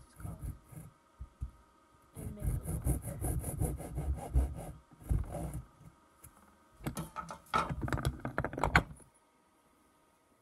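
Hacksaw sawing into a small carved pine lure body with quick short strokes, in two runs: from about two seconds in to past the middle, then again near the end before stopping.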